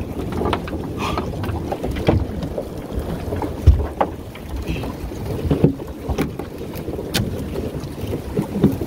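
Sounds aboard a small open fishing boat at sea: wind buffeting the microphone, with irregular knocks and splashes; the loudest thump comes about three and a half seconds in.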